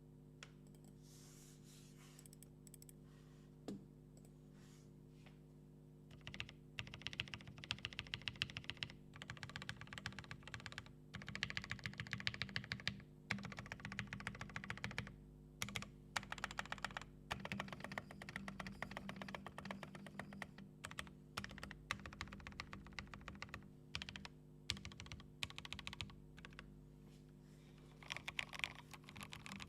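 Fast typing on a top-mount TKL mechanical keyboard with lubed Akko CS Jelly White linear switches and lubed stabilizers. The clacks start about six seconds in, after a single click, and come in quick runs broken by short pauses.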